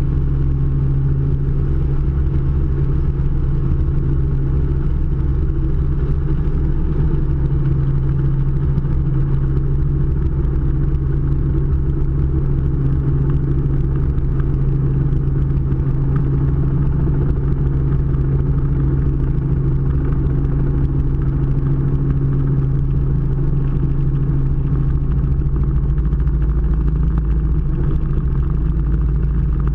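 Robinson R44 helicopter's engine and rotors heard from inside the cockpit: a loud, steady drone with a strong low hum, shifting slightly near the end as it comes to a hover close to the ground.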